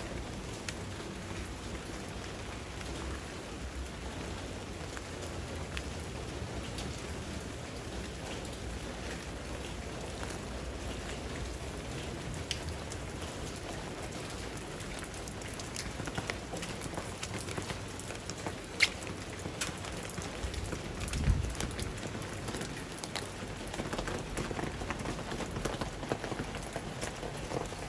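Steady rain falling on wet ground and foliage. Over it come a few sharp clicks and thuds, mostly in the second half, from footsteps in plastic slide sandals on wet ground.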